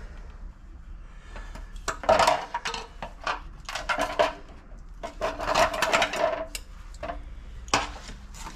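Hand tools and wires clicking, scraping and rattling in several short spells, with a sharp click near the end, as the electrical supply wires on top of a water heater are worked loose.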